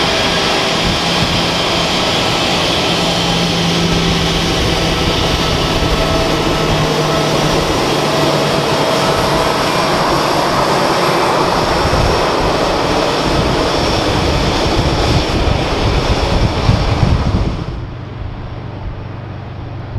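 Airbus A318 jet airliner's engines running loud and steady, with a low rumble that swells over several seconds, then drops suddenly to a quieter rumble near the end.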